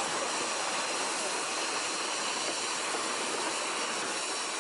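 Steady hiss of escaping steam from JNR Class C61 steam locomotive No. 2, even and continuous with no exhaust beats.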